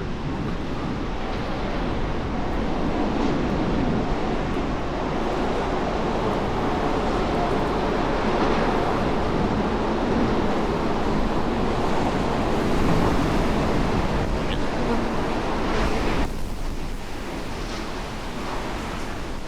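Strong wind blowing across the microphone, a dense, steady rush and rumble that swells and eases, then drops suddenly in level about three-quarters of the way in.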